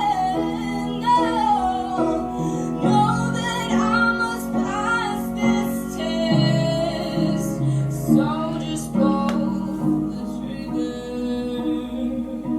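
A woman singing a song over instrumental backing.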